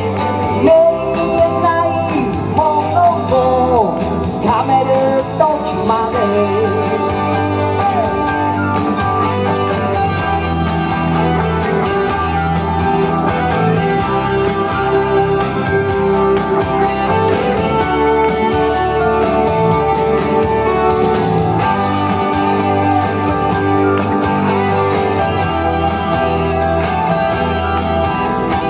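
Upbeat song played over the stage sound system, in an instrumental break between sung verses, with electric guitar; a pitch-bending melody line in the first few seconds gives way to a steady instrumental backing.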